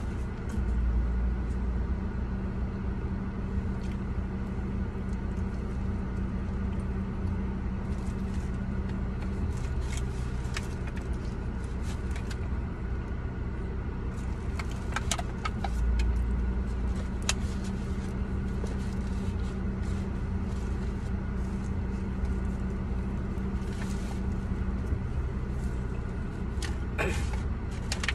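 Steady low hum of a car idling, heard from inside the cabin, with a few light clicks and scrapes of a wooden fork against a foil food tray.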